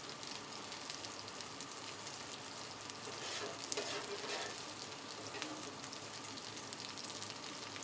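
Chicken wings sizzling on a hot Griddle Master flat-top griddle: a steady frying hiss with a fine crackle.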